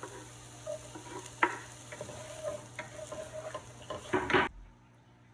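Diced onion sizzling in hot oil in a frying pan while a wooden spoon stirs it, with a few sharp knocks and scrapes of the spoon against the pan, the loudest near the end. The sizzle cuts off suddenly about four and a half seconds in.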